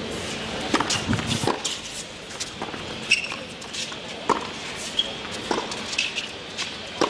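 Tennis rally on a hard court: rackets striking the ball and the ball bouncing, a quick series of sharp knocks.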